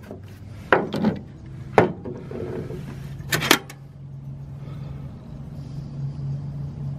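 Metal hand tools being handled and set down: five short knocks and clinks, two close together near the middle, over quieter rubbing and a low steady hum.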